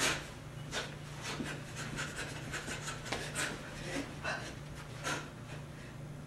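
A dancer's sharp, irregular breaths and exhalations as she moves, several short puffs a second with a few stronger ones, over a steady low electrical hum.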